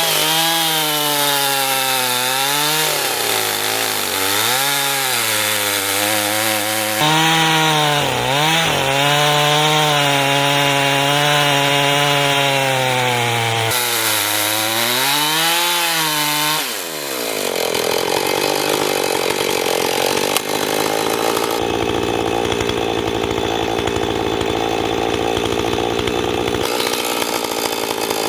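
Chainsaw in a chainsaw mill ripping lengthwise through a black walnut log, its engine pitch dipping under load and recovering again and again. About 17 seconds in, the engine settles into a steadier, rougher cutting sound.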